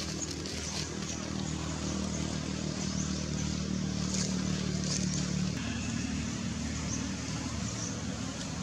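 An engine, most likely a passing motor vehicle, running with a steady low hum whose note changes about five and a half seconds in. A few faint short high chirps sound over it.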